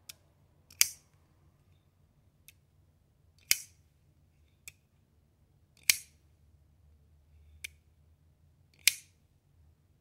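Boker Kalashnikov automatic folding knife's spring-driven blade snapping open four times, about every two to three seconds, each a sharp loud click. Fainter single clicks come between as the blade is folded shut.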